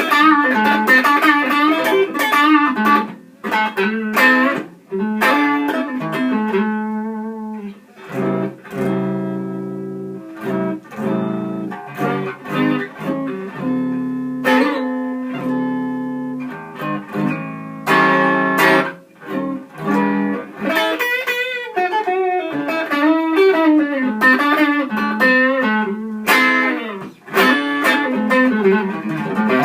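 Electric guitar on the neck pickup played clean through a single-ended 6V6 tube amp at 90 volts into a Vintage 30 speaker. Fast single-note runs open and close the passage, with held, ringing chords in the middle.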